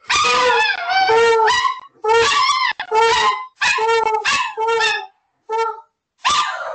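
Giant Alaskan malamute howling in a string of short, wavering calls, each half a second to a second long with brief breaks, the pitch bending up and down within each call.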